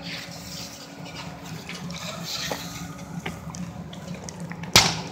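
Burning vehicles at a distance: scattered small pops and crackles over a steady low hum and hiss, then a single sharp bang near the end, the loudest sound.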